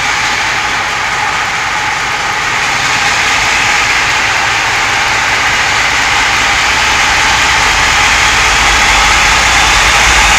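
Class 47 diesel locomotive's Sulzer twin-bank V12 engine running as the locomotive pulls its train out and passes close by. The sound grows steadily louder and deeper.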